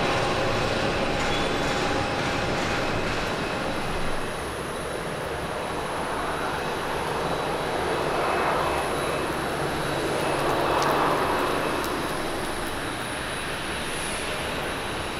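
Jet airliner engines running as aircraft land: a Boeing 767 rolling out on the runway, then, after a cut about four seconds in, a Boeing 737-800 touching down and slowing on the runway. The sound swells a little around touchdown.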